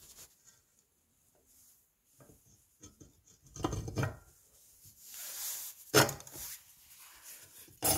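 Rubbing and handling noise with several knocks of hard parts being moved. There is a cluster of clunks about three and a half seconds in, a sharp knock at six seconds and another near the end.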